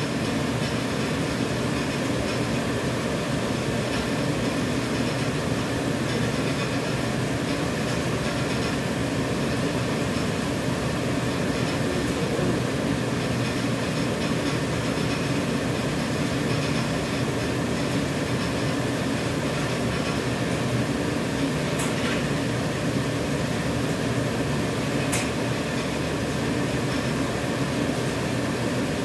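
Automatic disposable (dental) mask-making machine running steadily, a continuous even mechanical noise, with two brief ticks near the end.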